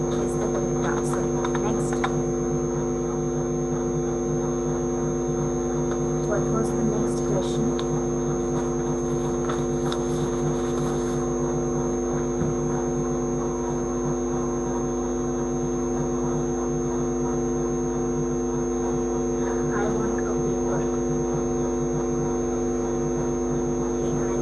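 Steady electrical mains hum: several even tones with a thin high whine above them, and a few faint clicks in the first seconds.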